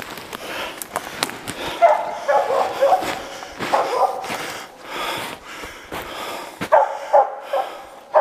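Hunting laika barking in short runs of several barks, about two, four and seven seconds in, with sharp crunching steps in snow between them.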